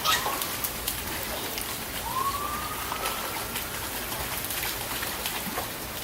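Steady rain falling, with scattered sharp ticks of drops. About two seconds in, a faint tone slides upward and holds for over a second; a second one begins near the end.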